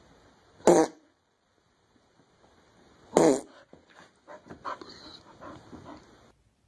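A dog makes two short, loud vocal sounds about two and a half seconds apart, followed by softer scattered noises.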